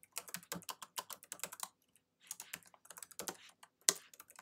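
Typing on a computer keyboard: quick, irregular keystroke clicks, with a short pause about two seconds in.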